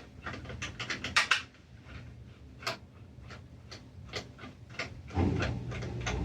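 Screws being driven into a housing with a screwdriver: a run of small clicks and ticks, a few a second, with a louder cluster about a second in. A low steady hum starts near the end.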